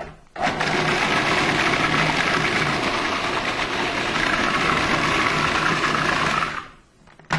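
Food processor with a metal blade running steadily, mincing pancetta and onion to a fine paste. The motor starts about half a second in, runs for about six seconds and winds down near the end, with a short knock at the start and at the end.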